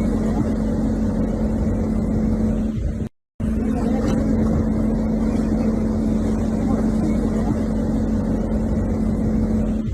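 A motor running with a steady, even hum, such as an idling truck engine or a refrigeration unit. The sound drops out completely for a moment about three seconds in.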